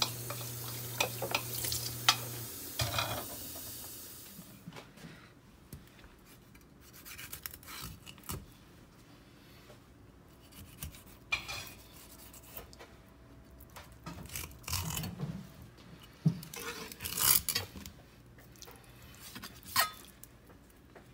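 Tap water running into a stainless-steel sink as a gutted mackerel is rinsed. It stops about four seconds in, and a kitchen knife then cuts and scrapes along the fish's backbone on a plastic cutting board, in short scrapes and light knocks.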